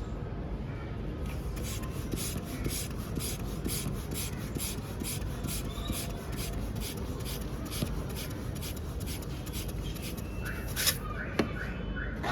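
Rhythmic scratchy rubbing, about four strokes a second, starting about a second in and stopping near the end. A few short squeaks and a click follow.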